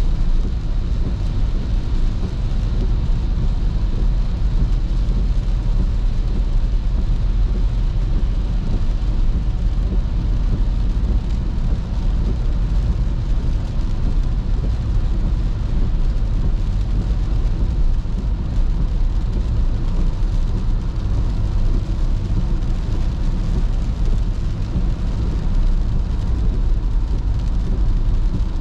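Steady road noise inside a car driving on a wet highway in the rain: engine and tyres on the wet road, a low rumble with a hiss over it.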